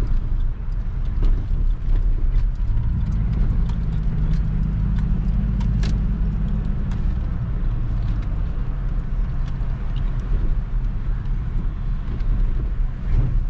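Engine and road noise heard inside a moving car's cabin: a steady low rumble that grows heavier for a few seconds in the middle, with a few light clicks and rattles.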